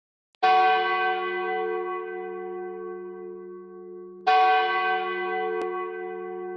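A large church bell tolling slowly: two strikes about four seconds apart, each ringing on and fading slowly.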